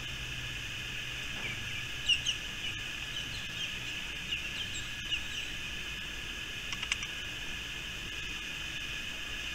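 Outdoor birds chirping in short falling calls, a few about two seconds in and a quick cluster near seven seconds, over a steady high drone of insects.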